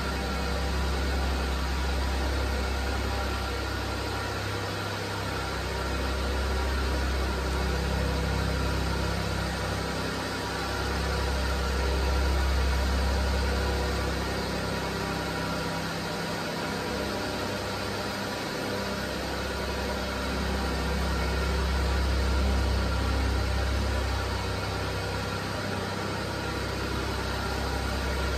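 1997 Mazda Scrum kei truck's small three-cylinder engine idling steadily. Its low rumble swells and fades every few seconds.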